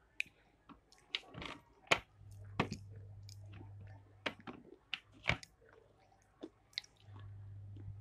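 Close-up chewing with irregular wet mouth smacks and sharp crunchy clicks. A low hum comes and goes underneath.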